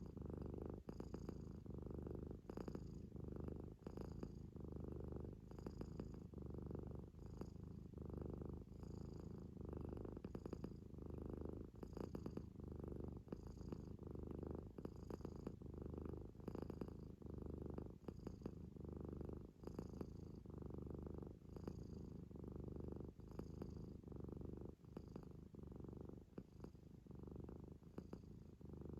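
Munchkin kitten snoring and snorting through its nose in its sleep, a steady rhythm of breaths about one every second or so.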